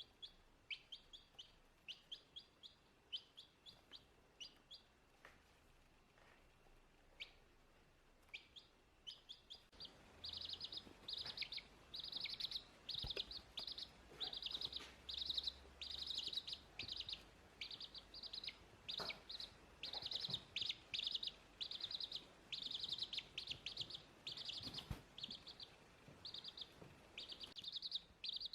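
A chick peeping: short high peeps, spaced out at first, then coming fast and louder from about ten seconds in.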